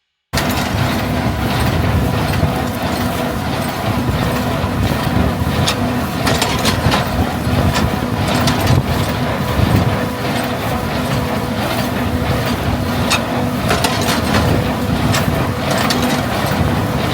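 Farm machinery running steadily: an engine-and-drive hum with a held tone and scattered sharp clicks and rattles, starting abruptly.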